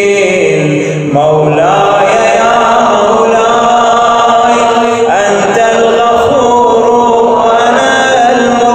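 A man chanting an Arabic supplication in long, drawn-out phrases with sliding pitch. A new phrase begins about a second in and another around five seconds in.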